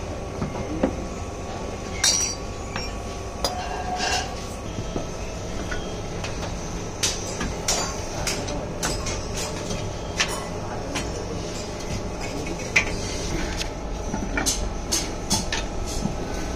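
Scattered sharp metallic clinks of long iron tongs and tools working at a crucible in a furnace fire pit, more frequent in the second half, over a steady low rumble.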